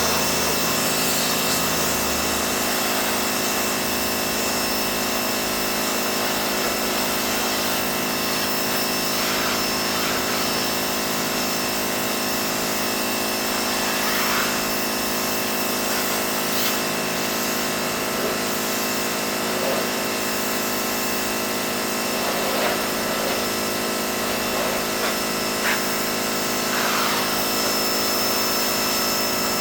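Pressure washer running steadily: a constant machine drone under an even hiss, with a few faint irregular changes along the way.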